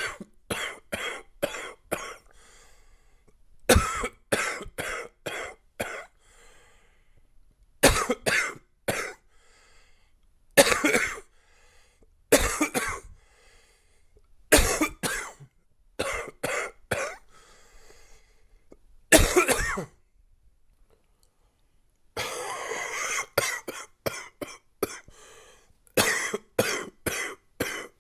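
A man's chesty, congested coughing from a chest cold, in repeated fits of several coughs, each fit opening with its loudest cough and trailing off. Near the end a longer rough stretch leads into a quick run of coughs.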